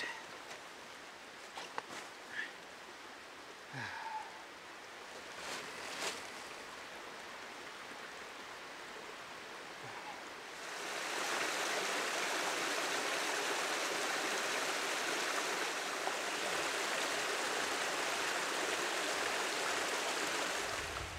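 Small forest waterfall spilling into a pool: a steady rush of water that starts suddenly about halfway through. Before it, quiet forest ambience with a few faint clicks and short chirps.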